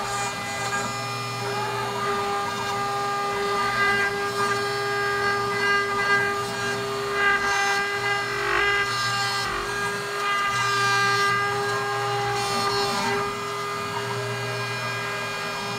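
Hobby CNC router cutting wood: the spindle's steady high whine with a stack of overtones over the bit chewing through the stock, swelling and easing slightly as the cutting load changes.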